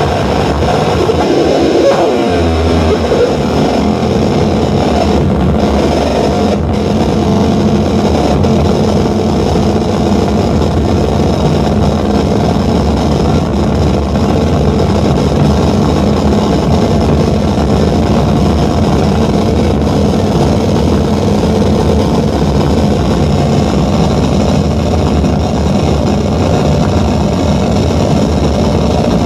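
Live noise music from a tabletop rig of wired electronics: a loud, unbroken wall of dense noise with a low rumble underneath, without a beat or a melody.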